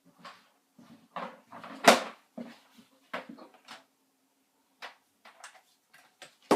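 A string of irregular knocks and clicks, as of hard objects being handled and set down, the loudest about two seconds in, over a faint steady hum.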